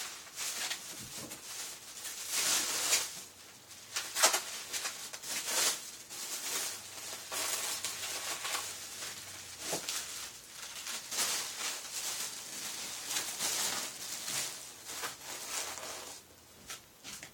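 Packaging being handled and opened: repeated rustling, crinkling and scraping of wrapping and box material, with several sharp knocks.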